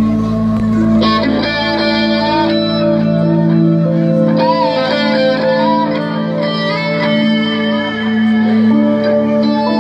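Live band music led by an electric guitar playing long sustained notes that bend and waver in pitch, over a steady low drone.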